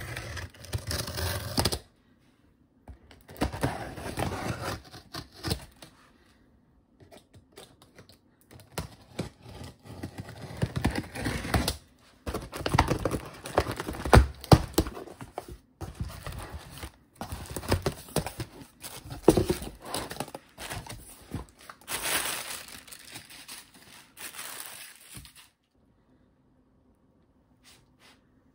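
Cardboard shipping box being opened: a utility knife slits the packing tape, then tape and cardboard flaps are ripped and pulled apart in repeated bursts of tearing and crinkling, with a few knocks against the box. The sounds stop a few seconds before the end.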